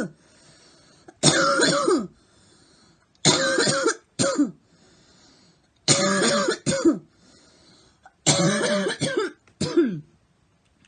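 A girl coughing in four bouts, about two seconds apart. Each bout is a long cough followed by a short one.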